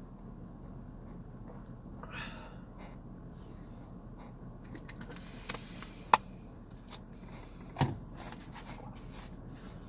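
Small handling noises over a steady low hum inside a vehicle: a soft rustle, a sharp click about six seconds in and a thump a little before eight seconds.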